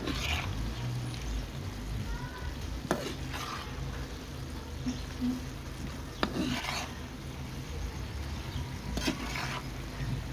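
A spatula stirring corn flakes through a potato-and-tomato curry cooking in a frying pan, with a few scraping strokes against the pan a few seconds apart.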